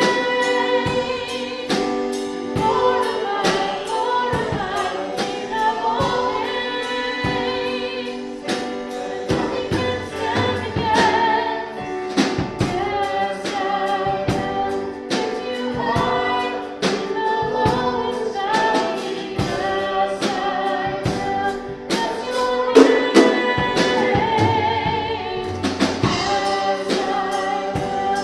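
A small church band plays a contemporary worship song live. Several voices sing over keyboard and a drum kit keeping a steady beat.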